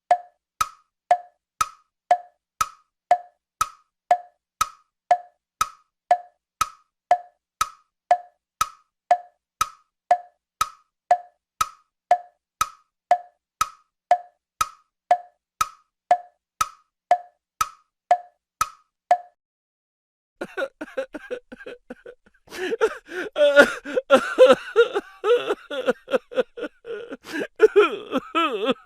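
A comedy sound effect: a short click with a brief pitched blip, repeated evenly about twice a second for roughly nineteen seconds. After about a second of silence, a different, busier pitched sound effect with many overlapping tones follows.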